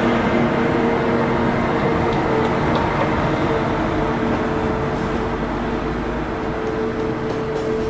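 ICE high-speed electric train running along the platform track: a steady rush of running noise with a steady electric hum, slowly getting a little quieter.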